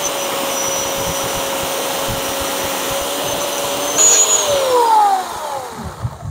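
Bosch electric chainsaw cutting into a deadwood log, its motor running steadily under load. About four seconds in it comes out of the wood, briefly gets louder, then winds down with a falling pitch as the chain coasts to a stop.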